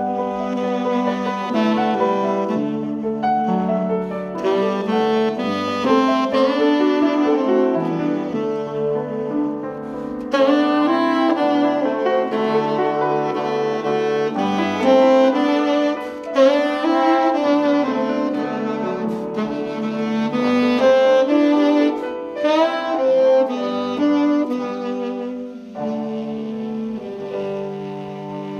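A tenor saxophone plays a melody in long held notes, accompanied by piano and trombone.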